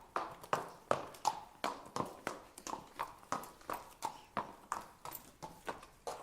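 A horse walking, its hooves clip-clopping on the ground in an even rhythm of about three hoofbeats a second.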